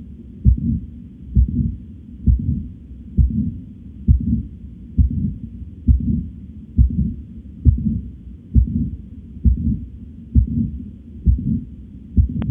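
Recorded heartbeat: regular low thudding heart sounds, about 67 beats a minute, with fainter sound filling the gaps between beats.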